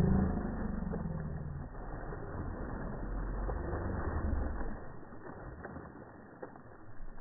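A mako shark and a man thrashing at the water's surface, with heavy splashing and scattered sharp slaps of water. A man's drawn-out yell fades out in the first second or two.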